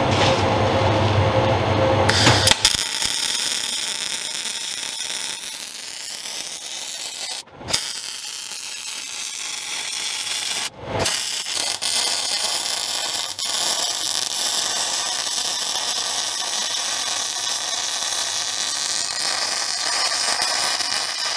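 MIG welding torch laying a bead on steel plate: the steady hiss of the arc starts about two and a half seconds in and breaks off briefly twice.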